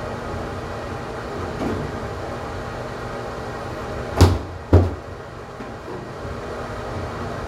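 Two sharp knocks about half a second apart, over a steady background hum.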